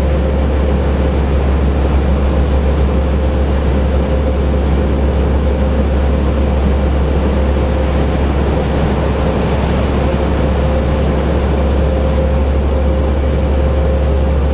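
Renault Magnum 440 lorry's straight-six diesel engine running steadily under hard load at cruising speed, heard inside the cab as a loud, unchanging low drone with a faint steady whine and road noise over it.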